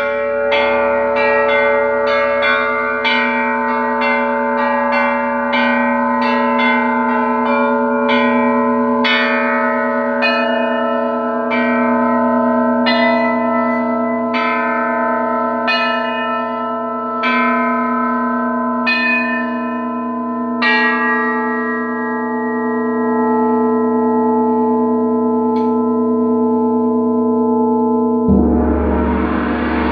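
Tuned metal bells struck one note at a time with a mallet, a quick run of strikes and then slower single notes, each note ringing on under the next. About two seconds before the end a gong is struck with a soft mallet and swells into a wide, noisy wash.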